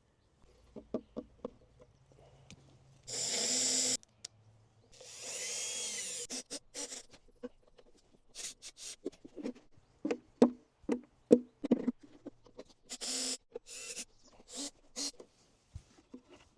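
Power drill run in short bursts on a wooden box, with its motor pitch rising and falling on the longer burst. Sharp knocks and clicks in between, the loudest about two thirds of the way in.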